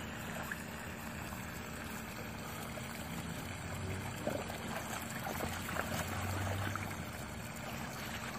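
Gentle, steady sloshing and lapping of pool water as a dog paddles across an inflatable above-ground pool, with a few faint splashes.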